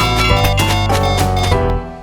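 Background music with a steady beat and pitched notes, dropping away shortly before the end.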